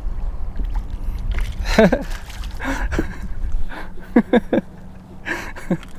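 Wind rumbling on the microphone, then several short voice-like sounds: one about two seconds in, three quick ones around four seconds in, and one near the end.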